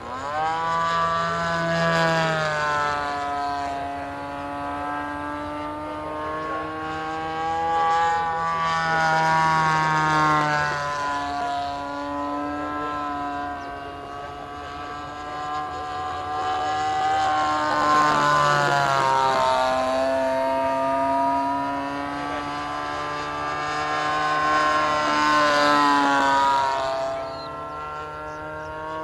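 A quarter-scale Yak 54 RC plane's CRRC Pro GF26i 26cc single-cylinder two-stroke petrol engine running in flight. Its note rises and falls in pitch and loudness several times as the plane manoeuvres overhead.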